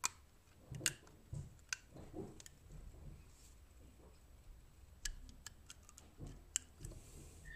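Faint, irregular clicks and light knocks of a rubber washer being pressed by hand into the brass threaded nut of a water hammer arrestor.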